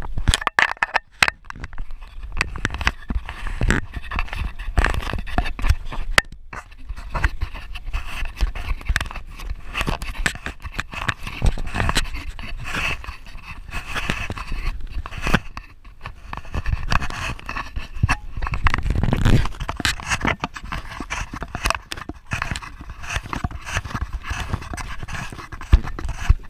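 Wind buffeting the microphone and choppy lake water slapping against a small aluminum boat's hull: an uneven, continuous rumble and splashing.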